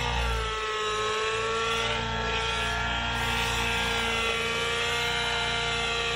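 Radio-controlled Caliber GT15 helicopter flying, its small glow engine and rotor head giving a steady high-pitched whine. The pitch dips briefly about half a second in, then holds nearly level.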